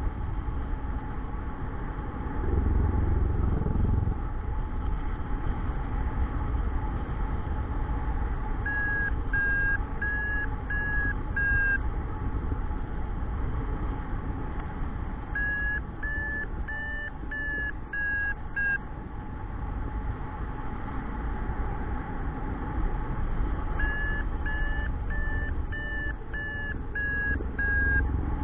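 Paragliding variometer beeping in three runs of short, evenly spaced beeps, about two a second, the pitch rising a little then falling within a run: the signal that the glider is climbing in lift. Steady wind rush on the microphone underneath, with a louder gust about three seconds in.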